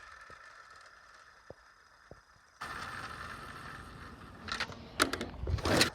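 A toy Bugatti Veyron model car being handled and its wheels spun by hand: a few faint clicks, then rubbing and scraping handling noises, loudest near the end.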